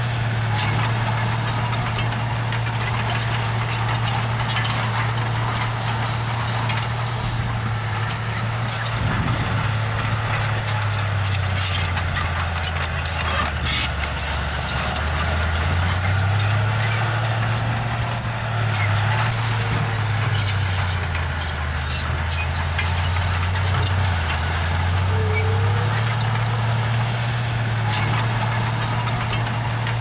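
Diesel engine of a small construction machine running throughout, its pitch sagging for several seconds around the middle and again twice later, then coming back up. Scattered metallic clanks sound over it.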